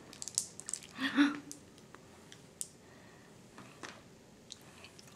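Squeeze bottle of Buldak mayonnaise squirting in small squishy spurts with light clicks, then faint wet mouth clicks of a finger being licked. A brief vocal sound about a second in is the loudest moment.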